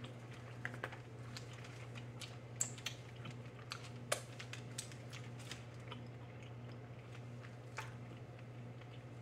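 Close-up chewing with scattered wet mouth clicks and lip smacks as a mouthful of seafood boil is eaten and sauce is licked off the fingers, over a steady low hum.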